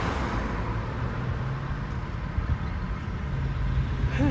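Steady low rumble and hum of a car heard from inside its cabin, the engine idling while stopped at a traffic light.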